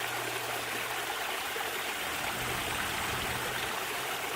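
Water splashing steadily down a man-made pond waterfall, a continuous even rush of falling water.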